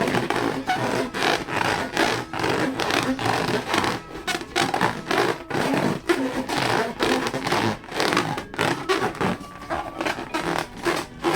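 Rubber balloons being squeezed and rubbed together: a rapid, irregular run of squeaks and scrapes.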